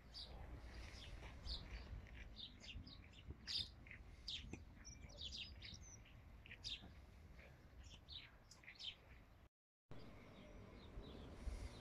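Several wild birds chirping and singing from the lakeside bushes, a chorus of many short high notes that overlap, over a faint low steady rumble. The sound drops out for a moment near the end and comes back fainter.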